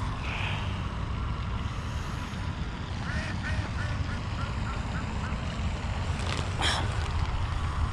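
A duck quacking in a quick run of about six short calls a few seconds in, over steady low wind rumble on the microphone, with a couple of short handling clicks near the end.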